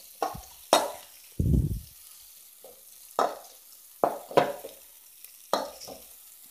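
Sliced onions frying in ghee in a metal kadai, stirred with a spatula: several sharp scrapes of the spatula against the pan over a faint sizzle, with one duller, longer scrape about a second and a half in.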